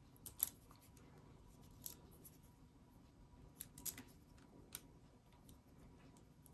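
Near silence with a handful of faint, short clicks and light handling noises, like small objects being moved about on a table.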